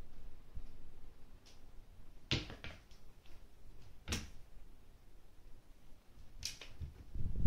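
Three short bursts of thumps and scrabbling about two seconds apart, the first a quick cluster: a Somali cat's paws landing and skidding on a hardwood floor as it pounces on and bats a small plush toy.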